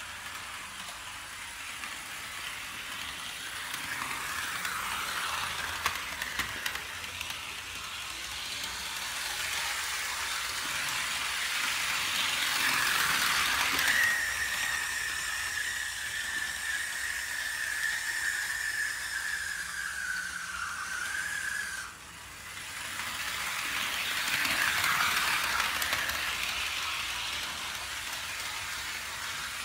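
Tyco GP-20 model locomotive with a three-pole Power Torque motor running around the track, a whirring hiss of motor and wheels that swells as it passes close and fades as it moves off. About halfway through a steady high squeak sets in, sags slightly in pitch and cuts off abruptly: the dry brass bushing on the commutator, a sign the motor needs maintenance.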